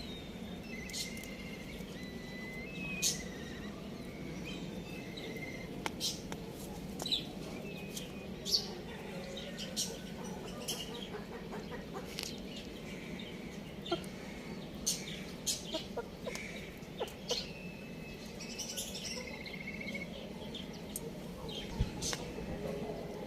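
Birds chirping: many short, high-pitched chirps scattered irregularly over a steady low background hum.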